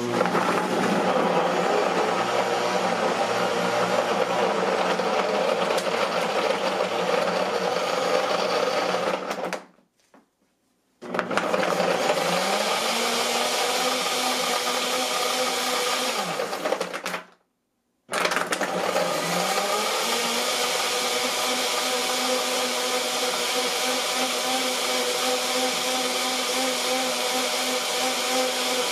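NutriBullet Blender Combo's 1200-watt motor base running its automatic Extract program, blending kale, carrots, celery, cucumber and ice into a smoothie in the pitcher. The motor stops twice briefly, about ten and seventeen seconds in, and spins back up with a rising whine each time.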